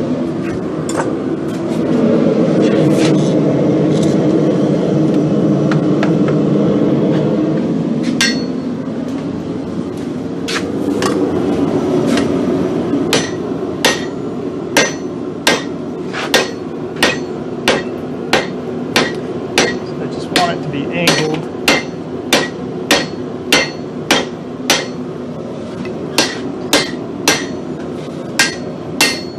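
A steel hand hammer strikes a red-hot steel bar on an anvil, bending the heated end over the anvil. Each blow is a sharp ringing clank. The first part has a steady rushing noise and a few scattered blows. From about halfway through the blows settle into an even rhythm of about one and a half a second, with a short pause near the end.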